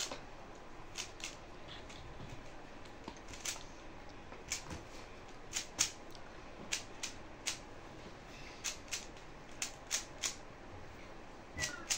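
A 3x3 Rubik's-style puzzle cube being turned by hand: irregular, sharp plastic clicks as its layers are twisted, about twenty of them scattered through, some in quick pairs.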